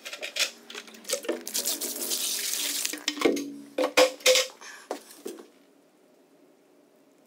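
Water poured from a bucket into a steel wheelbarrow, splashing onto a water-activated polymer flood bag, a rush lasting about a second and a half from about a second and a half in. A few sharp knocks and clatters come before and after the pour.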